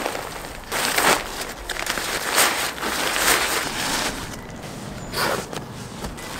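Nylon camping gear rustling and crinkling as it is handled and packed into a bag, in several short swishes, with footsteps on a wooden deck.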